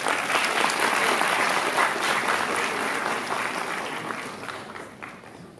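Audience applauding, a dense crowd clapping that is loudest at the start and dies away toward the end.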